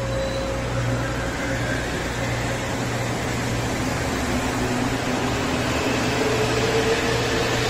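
Mexico City Metro train pulling out of the station, its electric traction motors whining and rising steadily in pitch as it speeds up. Underneath is a steady low hum from the trains standing at the platform.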